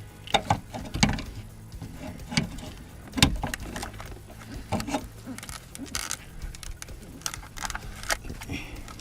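Irregular clicks and knocks of tools and parts being handled while a replacement starter motor is worked into place under the car, with the loudest knock about three seconds in.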